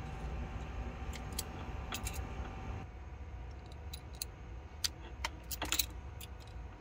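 Small sharp clicks and clinks of a hand-held wire stripper working on thin wire, with the wires and the switch panel being handled. A few clicks come about a second in, and a denser run of clicks from about five seconds in, the loudest near the end.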